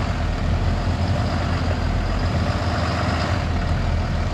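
Heavy diesel engine of a Super C motorhome on an International truck chassis running at low speed with a steady low drone as the rig creeps forward under way.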